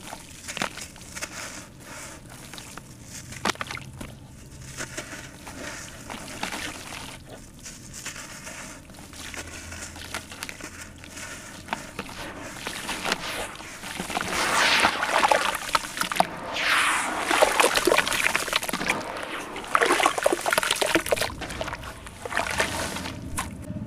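Hands crumbling dry sand-cement chunks in a plastic basin with a soft, gritty crunch. From about halfway through it turns to louder sloshing and splashing as the cement is squeezed and worked in water into a slurry.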